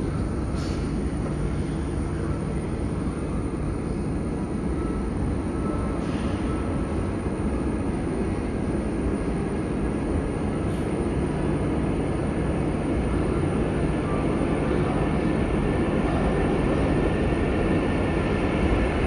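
Underground metro platform ambience: a steady low rumble and hum of rail traffic in the tunnels, growing slightly louder near the end.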